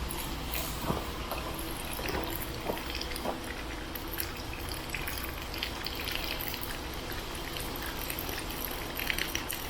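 Water from a garden hose running and splashing as it flows through the pressure washer line, with a few light knocks.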